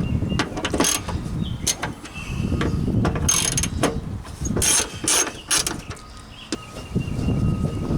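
Hand tool with a T30 Torx bit backing screws out of a Jeep Wrangler YJ tailgate latch: irregular ratchet clicks and metal scrapes, with a few faint thin squeaks.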